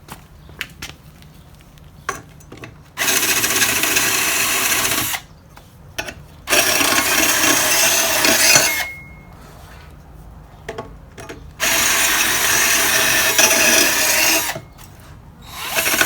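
Power drill spinning a blade-sharpener grinding stone against the edge of a lawn mower blade, in three bursts of about two to three seconds each, with a fourth starting near the end; faint clicks and handling between bursts.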